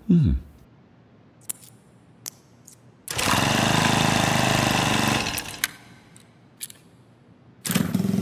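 A small engine running for about two seconds, then cutting out, followed near the end by a small motorcycle engine starting up and running, with a few light clicks in between.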